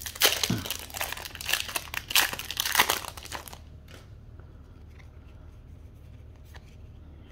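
Foil-lined booster pack wrapper being torn open and crinkled by hand, a dense loud crackle for about the first three and a half seconds. After that come only faint ticks and slides of the trading cards being handled.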